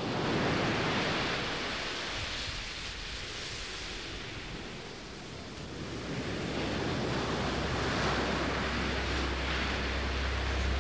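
Sea waves washing against the shore, a steady rush that eases off midway and swells again. A low steady rumble comes in during the second half.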